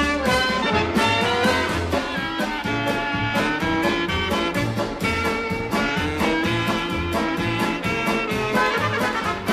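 Background music: an upbeat swing-style instrumental tune with a steady beat and a moving bass line.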